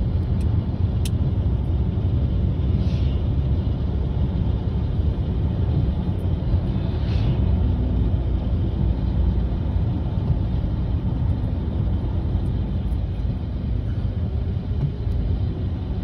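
Steady low rumble of a moving road vehicle heard from inside the cabin: engine and tyre noise on the road. There are two brief faint hisses about three and seven seconds in.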